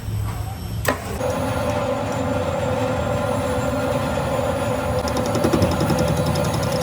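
Manual lathe running: a sharp click about a second in, then a steady mechanical hum with a held whine. A fast, even ticking joins in from about five seconds.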